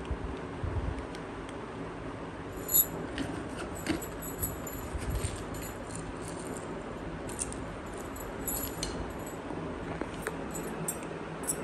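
Cats crunching dry kibble: scattered crisp clicks and crackles over a steady background hiss, with the sharpest crack about three seconds in.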